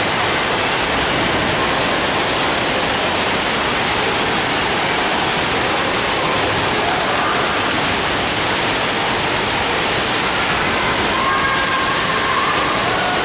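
Water-park pool waterfall pouring steadily into the pool: a loud, even rush of falling and splashing water.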